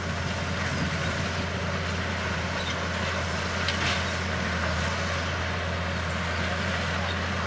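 Bulldozer's diesel engine running steadily under work, a constant low hum with a brief higher rasp about halfway through.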